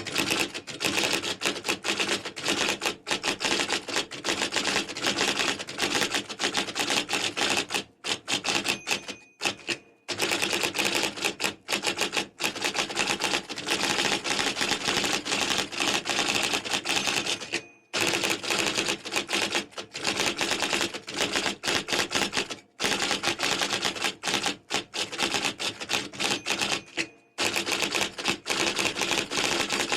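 Typewriter typing: a fast, continuous run of key strikes, with short pauses a few times. A brief ringing tone sounds at the start and again about nine seconds in, like the typewriter's carriage-return bell.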